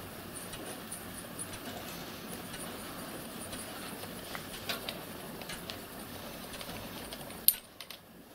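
Light metallic clicks and taps as the steel burner tubes and brass manifold of a model locomotive gas burner are handled, over a steady background hiss. One sharp click near the end, after which the hiss drops away.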